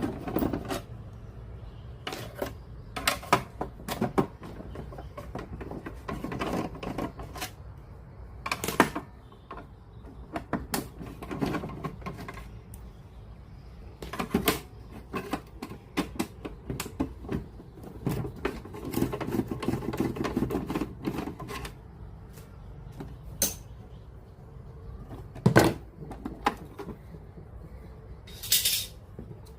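Irregular mechanical clicks and knocks from handling a JVC PC-W100 radio-cassette player during repair: plastic casing, parts and tools being moved and set down. The clicks are scattered and uneven, with a few louder knocks, one of them about 26 seconds in.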